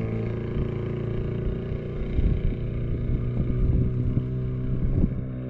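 An engine running steadily with a low, even hum, with a few faint ticks over it.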